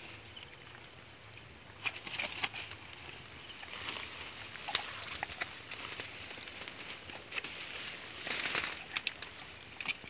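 Handling sounds of a large rohu: scattered rustles and sharp slaps as the fish flaps in the hands. A longer burst of rustling and flapping comes about eight and a half seconds in.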